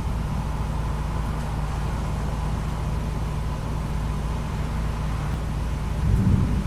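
Steady low hum of a car's engine idling, with a brief swell of low rumble about six seconds in.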